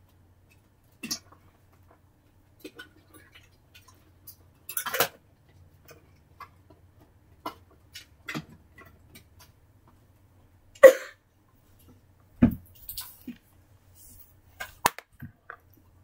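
Scattered small clicks and knocks, about a dozen spread irregularly, with a louder knock about eleven seconds in, over a faint low hum.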